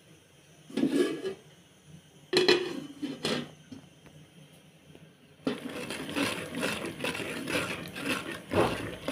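A metal cooking pot and an enamel plate used as its lid clatter and knock three times. About halfway through, a steady sizzle of vegetables cooking in the pot starts abruptly, with scraping strokes of stirring.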